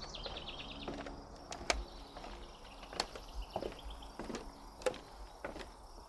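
Footsteps walking at an unhurried pace, each step a knock on a hard surface. A small songbird gives a short, quick trill at the start and again about three seconds in.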